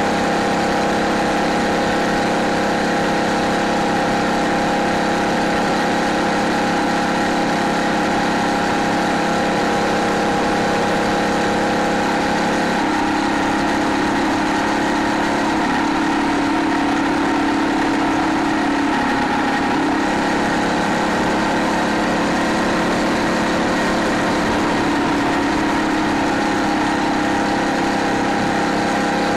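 Phatmoto Rover motorized bicycle's 79cc four-stroke gas engine running steadily under way. Its note shifts slightly about thirteen seconds in and again around twenty.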